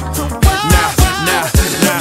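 Hip-hop music with a steady drum beat and vocals.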